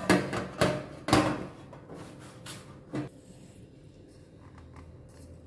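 Kitchen bowls being handled, knocking and clattering about six times in the first three seconds as ground rice flour is moved into another bowl.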